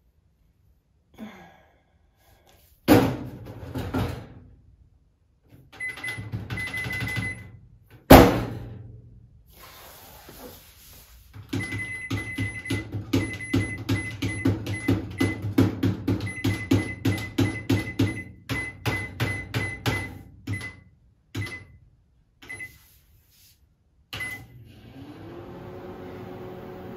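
Microwave oven used as an instrument: two loud thunks, then a fast rhythmic run of keypad presses and short beeps at about three a second. Near the end the oven starts running with a steady hum.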